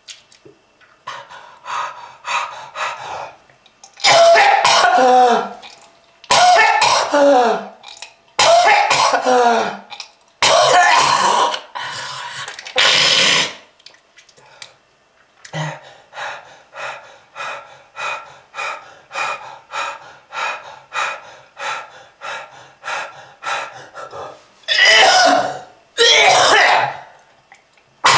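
A person in a prolonged coughing fit, presented as a smoker's cough: a few short coughs, then several long, strained coughs whose pitch slides downward, then a run of about twenty short coughs at two or three a second, and two more loud coughs near the end.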